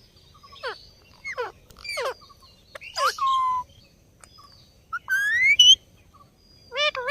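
Indian ringneck parrot calling: several short calls that drop sharply in pitch, one ending in a held note about three seconds in, then a rising whistled glide about five seconds in and another call near the end.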